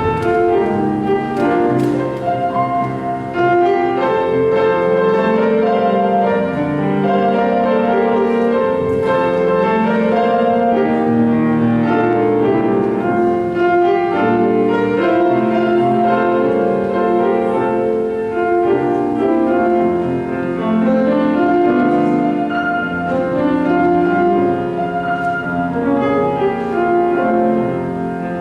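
Piano playing an instrumental offertory piece of held chords under a moving melody.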